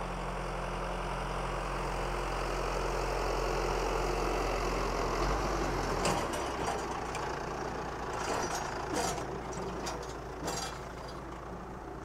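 John Deere tractor driving past with its side disc mower folded up: a steady diesel engine drone that grows louder as it approaches, peaks about halfway through, then fades. A few knocks and rattles come in the second half as it goes by.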